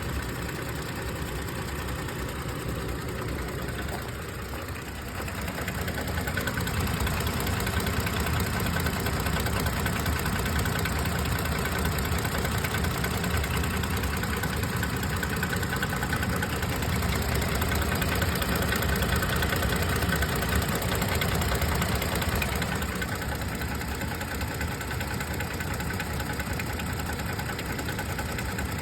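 A 2022 Toyota Tacoma's engine running with a knock or tap that the owner is taking to the dealer for diagnosis and warranty repair. It gets louder about five seconds in and eases slightly near the end.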